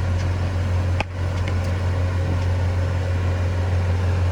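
An engine running steadily with a deep, even hum, with a sharp click about a second in.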